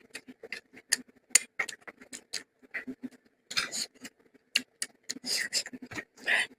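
Close-miked mouth sounds of a person eating: wet chewing and lip-smacking clicks, several a second and irregular, with a few longer breathy sounds in between.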